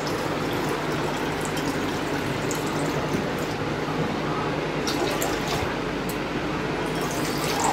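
Water running from a wall-mounted water purifier's tap into a steel tumbler, a steady stream of filling.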